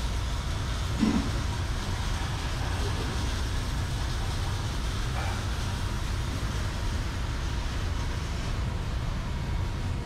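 Steady low rumble and hiss of a working welding shop: fume extraction running and arc welding going on behind the welding curtains, with a brief thump about a second in.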